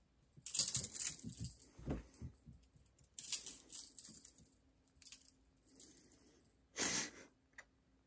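A domestic cat scrambling and pouncing on a wooden floor after a wand toy: irregular bursts of paw thumps and scuffing, skittering scrabbles, the busiest near the start and a sharp one about seven seconds in.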